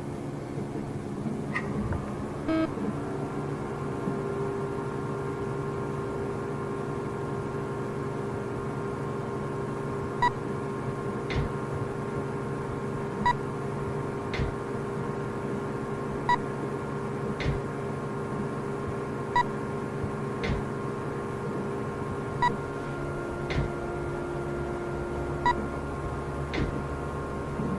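Electronic soundtrack drone: a steady low hum with several held tones, joined from about ten seconds in by a short beep followed by a sharp click, the pair repeating about every three seconds.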